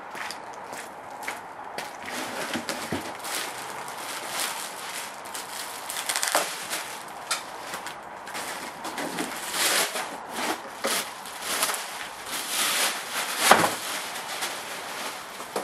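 Plastic film wrapping crinkling and rustling in irregular bursts as it is pulled off a running board, with sharper crackles, the loudest near the end.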